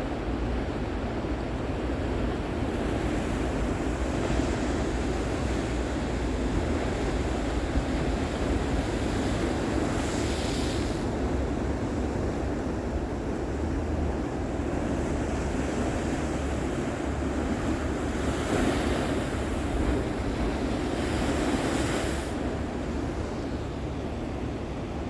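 Sea waves breaking on a beach, the surf swelling into a louder hiss every several seconds, with wind rumbling on the microphone.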